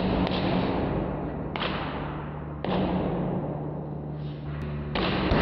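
Paper books bursting one by one under a 150-ton hydraulic press: four sudden bangs at uneven intervals, each trailing off into a noisy rush. A steady low hum runs between them.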